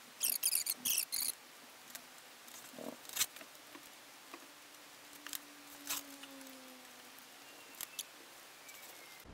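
Hands handling parts and tools on a workbench: a burst of crinkly rustling in the first second, then scattered small clicks and taps as things are picked up and set down.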